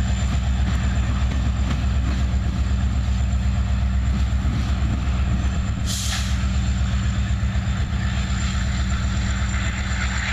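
Freight train's diesel locomotive running with a steady low drone, and a short burst of hiss about six seconds in.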